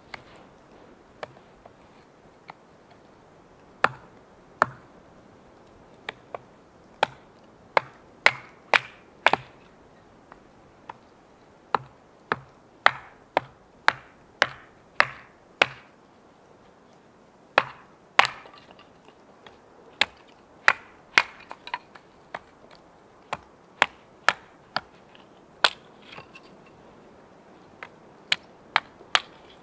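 An axe splitting kindling on a wooden chopping block. Many sharp woody knocks come in runs of quick strikes, broken by short pauses.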